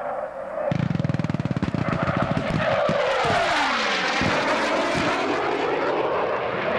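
A rapid string of pyrotechnic blasts starting about a second in, with a few heavier booms, set off along the ground to simulate a strafing run. Under them, the jet noise of a CF-18 Hornet's twin General Electric F404 engines passes low overhead, its whine falling in pitch as the jet goes by.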